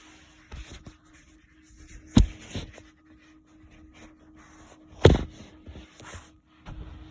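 Tesla Model 3 giving two loud thumps, about three seconds apart, with a few softer knocks between, over a faint steady hum. The thumps come at 7 to 8 mph as the accelerator is pressed and released, a drivetrain clunk on the change of torque.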